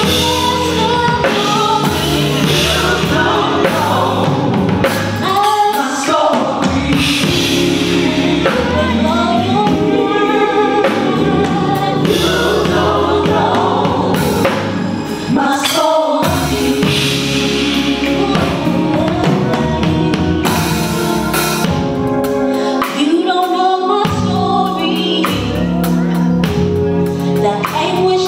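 A woman singing a gospel song into a microphone, with musical accompaniment underneath.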